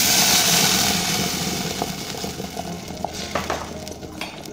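Blended guajillo-chile adobo sizzling hard in a pot of very hot olive oil just after being poured in. The sizzle fades steadily, breaking into a few sharp crackles and pops in the second half.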